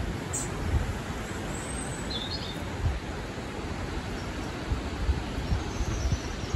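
Outdoor wind buffeting the microphone in low, irregular rumbles over a steady hiss, with a few short bird chirps.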